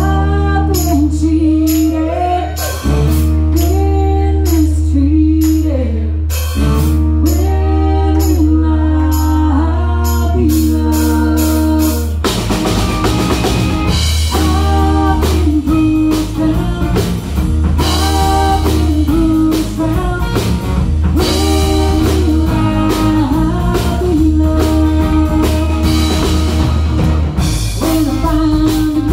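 Live rock band playing, with a woman singing lead over electric guitar, bass guitar and drum kit. About twelve seconds in, the band comes in fuller and busier under the vocal.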